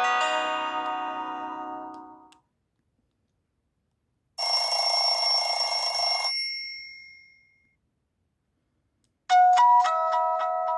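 Nokia C5-00 ringtones played one after another: a melodic tone fades out over the first two seconds, then after a pause a short buzzy alert with high tones lasts about two seconds, and after another pause a new chiming melody begins about nine seconds in.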